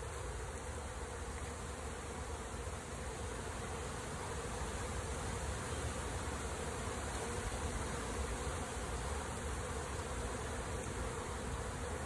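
A swarm of wild honeybees buzzing as it moves into a swarm trap: a dense, steady hum from thousands of bees clustered on the box and flying around it.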